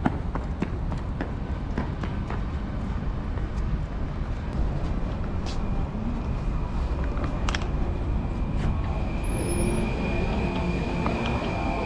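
Rolling luggage rumbling over street paving, with rapid regular clicks about three a second as the wheels cross the paving joints. From about six seconds in, a steady high tone joins it, and voices start near the end.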